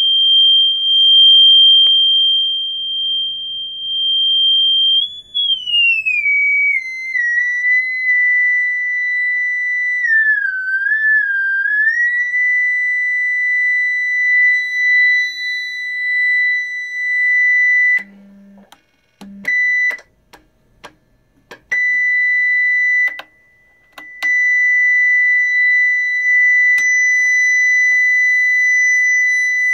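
Sine test tone from an audio generator played through a refurbished Hammond AO-39 amplifier: a steady high whistle that glides lower as the frequency dial is turned, dips briefly and comes back up, then holds. About two-thirds through it cuts out and back in several times, with a short low tone among the gaps, before holding steady again.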